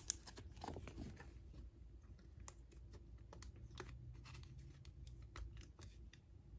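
Faint clicks and light plastic rustling of a trading card being handled into a clear plastic sleeve, mostly in the first second or so, then a few sparse light ticks.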